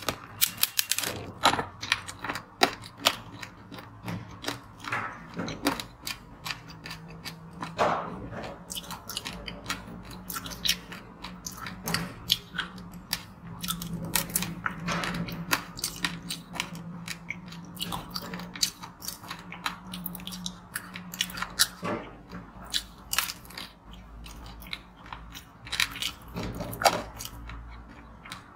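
Close-miked biting and chewing of a frozen, chocolate-coated treat covered in sprinkles: a long run of crisp crunches and cracks with chewing between them.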